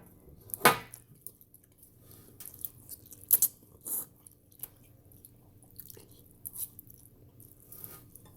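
People eating instant ramen noodles: scattered chewing sounds and short clicks, with a few louder sharp sounds about a second, three and a half and four seconds in.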